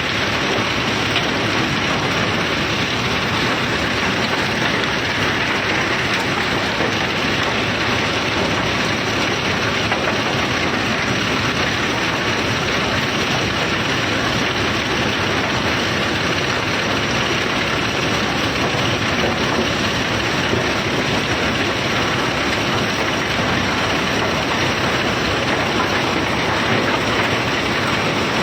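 Self-unloading cargo ship discharging its load: the unloading machinery and conveyor run steadily while bulk cargo pours off, a constant dense rushing noise with a mechanical rattle and hum beneath it.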